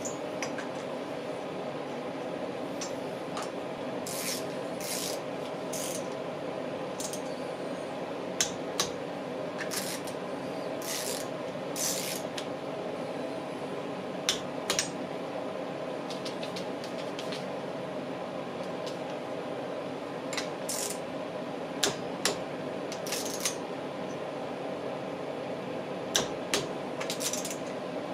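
Metal hand tools clinking and ratcheting in short, irregular bursts during scooter engine reassembly, over a steady hum.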